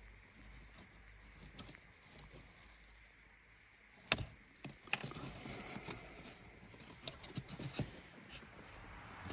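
Faint hum, then two sharp knocks about four and five seconds in, followed by a run of lighter clicks and taps.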